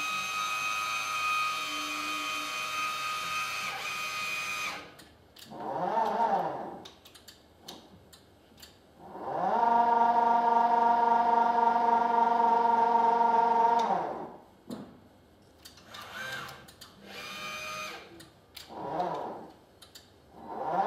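Electric drive of a Carolift 6900 wheelchair loading crane running in separate stretches: a steady whine for the first few seconds, a short run around six seconds in that rises and falls in pitch, a longer steady run of about five seconds that ramps up in pitch at its start and down at its stop, and brief short runs near the end.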